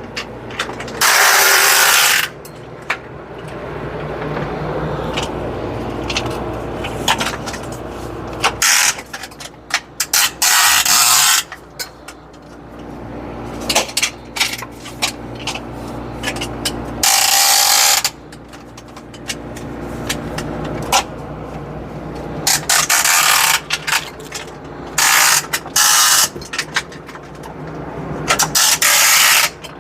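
Rope ratchet hangers being pulled to adjust a grow light: about six loud zipping bursts of roughly a second each, with scattered clicks between them.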